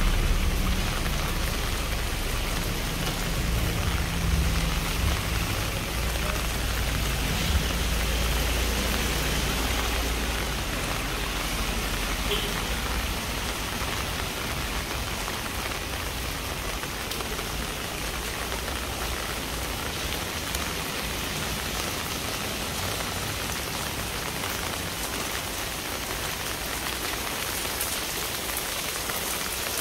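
Steady rain falling and pattering on hard surfaces. A low rumble sits under it for the first dozen seconds or so, then fades away.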